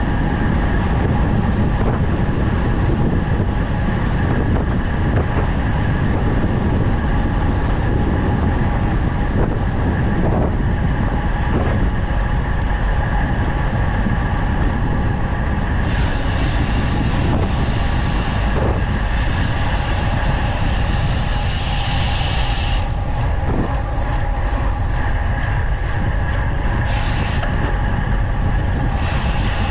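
Wind rushing over the microphone and tyres rolling on asphalt as a road bike descends at about 40 km/h: a loud, steady rumble. A brighter hiss joins for several seconds past the middle and again briefly near the end.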